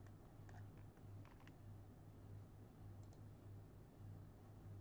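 Faint computer mouse clicks, a handful scattered through, some in quick pairs, over a steady low electrical hum.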